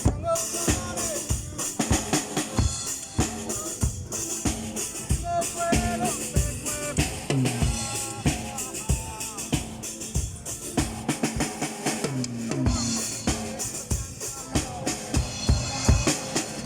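Live band playing at a sound check: a drum kit keeps a steady beat with bass drum and snare, under bass and other pitched instruments.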